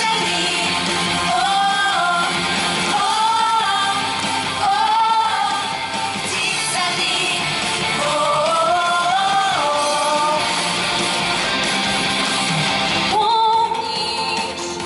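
A song with a voice singing a melody over guitar accompaniment; the sound of the arrangement changes about 13 seconds in.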